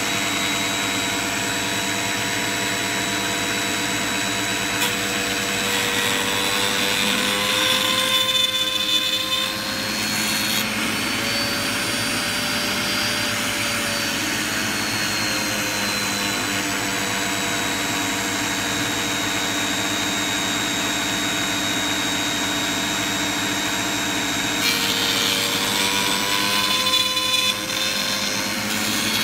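Table-mounted router running at a steady high whine, twice growing louder and rougher as the bit cuts slots into a hardwood strip: about a quarter of the way in and again near the end.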